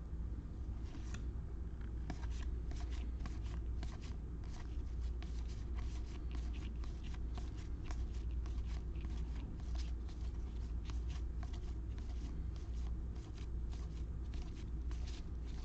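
Topps baseball trading cards being slid and flipped through one after another: a quick, irregular run of soft flicks and rustles over a steady low hum.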